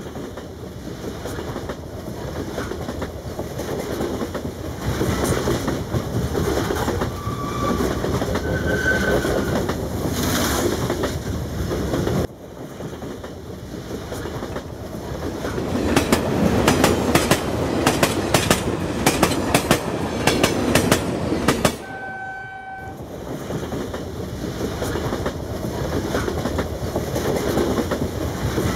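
Battery-powered toy train running along plastic track, a steady rolling rattle with rapid wheel clicks over the rail joints. There are a few short horn toots.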